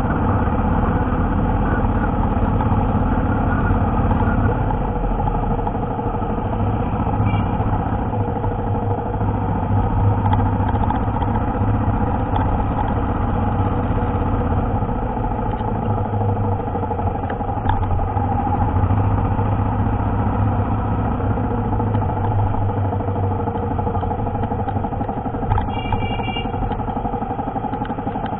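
Motorcycle engine running steadily while riding, with road noise; a brief high-pitched beep sounds near the end.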